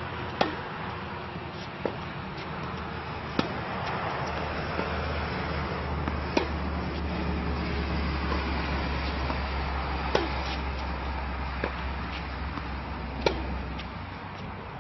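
Tennis rally on a hard court: sharp pops of the ball on racket strings and court, seven in all, one and a half to four seconds apart. A low rumble swells through the middle.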